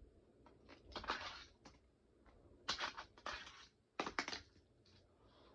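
Fingerboard being flicked through tricks on a small toy skatepark: a handful of sharp clacks as the board pops and lands, with short scrapes and rolls between them.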